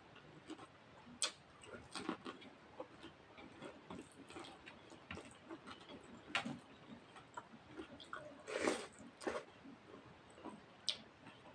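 Close-up eating sounds from a meal of rice and mutton curry: faint chewing and mouth clicks at an irregular pace, with a few sharper clicks and a louder, longer crunch-like burst a little before nine seconds in.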